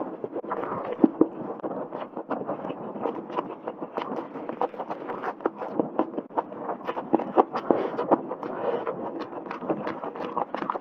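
Close-miked wet chewing and lip smacking on tender spicy braised meat from a large bone, with many small irregular clicks and squelches.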